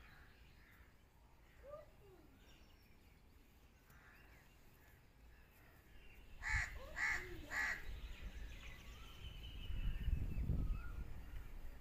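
A bird calling three times in quick succession, about half a second apart, a little past the middle, with faint bird chirps around it. A low rumble follows near the end.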